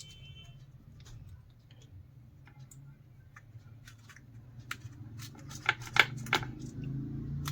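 Small clicks and rattles of an XLR connector's metal and plastic parts being handled and pushed together as the connector is assembled, with a few louder clicks about six seconds in. A low steady hum runs underneath and grows louder near the end.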